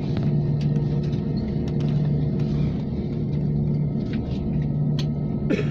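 Airliner cabin noise: the jet engines' steady low rumble with a hum, and small rattles and clicks now and then.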